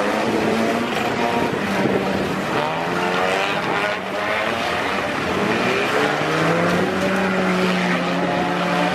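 Several stock car engines running and revving around a track, their pitch rising and falling, heard over steady wind-like noise.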